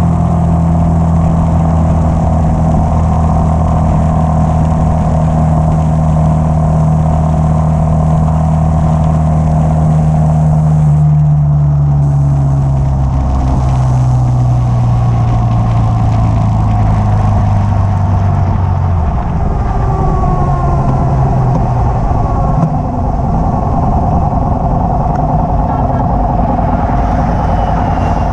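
Yamaha XT660X's single-cylinder engine running as the bike rides along, with wind and road noise over it. The engine note holds steady, then falls slowly about halfway through as the bike eases off.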